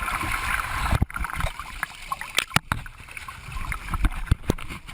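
Sea water splashing and sloshing right at the microphone, with several sharp slaps and knocks of water and handling against it.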